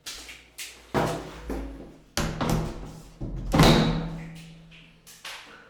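A run of knocks and clunks from someone getting into a shower cubicle, some leaving a short ringing hum, the loudest about three and a half seconds in.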